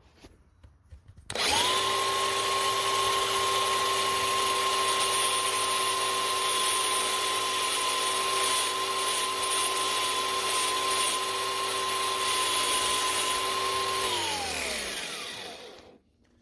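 Small handheld electric power tool starts up and runs at one steady speed for about twelve seconds, then is switched off and winds down, its pitch falling.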